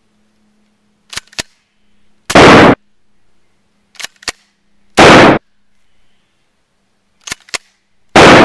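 Pump-action shotgun sound effect, fired three times about three seconds apart: each time two sharp clicks of the pump being racked, then a loud blast that clips at full level, the last near the end.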